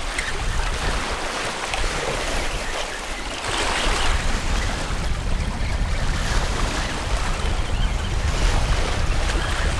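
Wind rumbling on the microphone over small waves washing in the shallows, with a louder rush of noise about three and a half seconds in.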